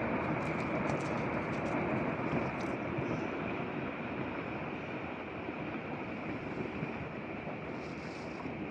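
Deep, steady rumble slowly fading away after rock blasting at a dam construction site, with a few faint clicks near the start.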